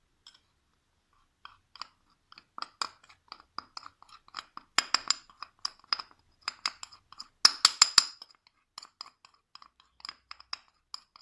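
A spoon stirring cornstarch into a liquid mixture, clinking against the side of a bowl in a quick, uneven run of ringing clinks that start about a second and a half in and are loudest in the middle.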